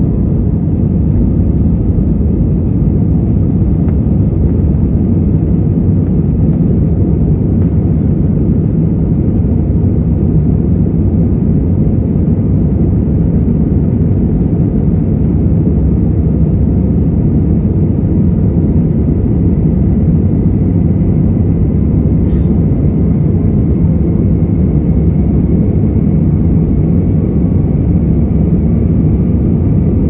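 Jet airliner cabin noise during the climb after takeoff: a steady, loud rumble of the engines and rushing air heard from a window seat over the wing, with a faint high whine that rises slightly in pitch near the end.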